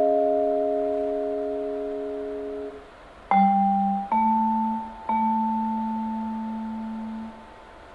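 Solo vibraphone: a held chord rings, fading slowly, and is damped off just under 3 seconds in. Three low notes are then struck about a second apart, and the last one rings for about two seconds before being damped.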